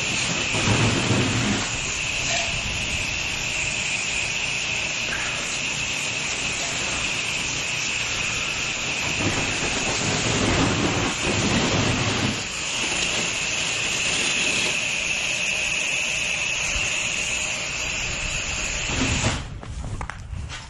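Pressure washer spraying: a loud, steady hiss of the water jet that swells twice and cuts off abruptly about a second before the end.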